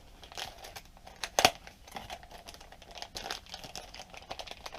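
Small plastic RC parts being handled with a plastic parts bag crinkling, scattered light clicks throughout and one sharper click about a second and a half in.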